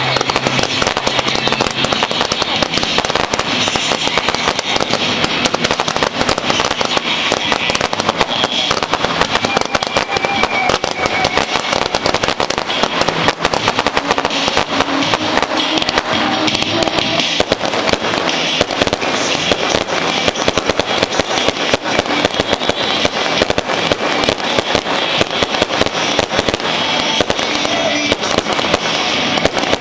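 Fireworks barrage firing in rapid succession: a dense, continuous crackling and popping that keeps up without a break.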